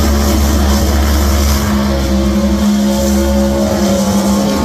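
V8 drag-racing engine held at a steady high rpm during a burnout, the rear tyres spinning to heat them before the run.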